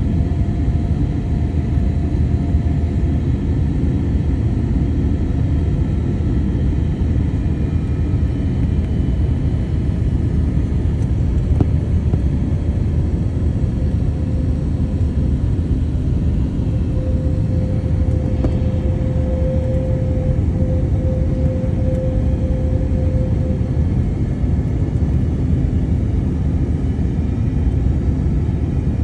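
Steady cabin noise of an airplane on its landing approach, heard from inside the cabin: a constant, low-heavy rumble of engines and airflow. A faint steady tone rises out of it for a few seconds near the middle.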